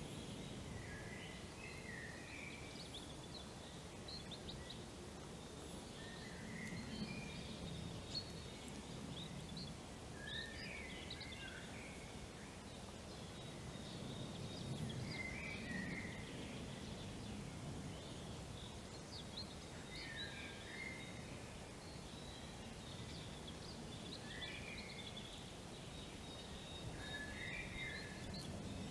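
A small bird sings a short chirping phrase again and again, every three to five seconds, with fainter high chirps between. Under it runs a steady low background rumble.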